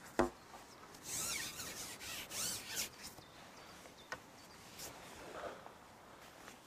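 A carbon match-fishing pole being shipped back, its sections sliding and rubbing in a few short swishing bursts, with a sharp knock just after the start and a couple of light clicks.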